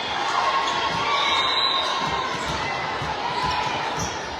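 Volleyball game in a gymnasium: a ball gives several dull thumps at irregular intervals over a steady background of voices from players and spectators, echoing in the hall.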